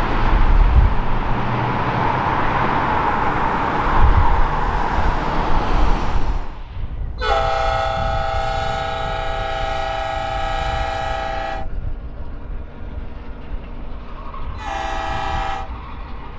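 A steady rushing rumble of a train rolling away, then an Alaska Railroad diesel locomotive's horn: one long chord-like blast of about four seconds, and after a pause, one short blast.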